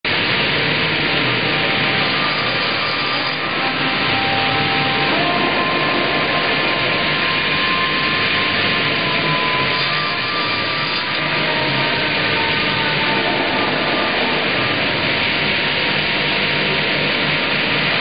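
StrojCAD D9 double-bladed circular sawmill running: its two circular saw blades spin and saw a log as the carriage feeds it past the cutting head. The noise is steady and loud throughout.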